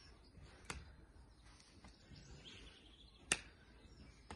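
Punches striking hand-held focus mitts: three sharp slaps, the second one the loudest.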